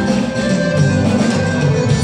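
Loud music playing, with sustained notes changing every fraction of a second.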